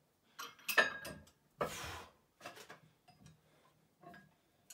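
Barbell and iron weight plates clinking and knocking as the bar is handled: a sharp metallic clink with a brief ring about a second in, a short noisy rush, then a few faint knocks.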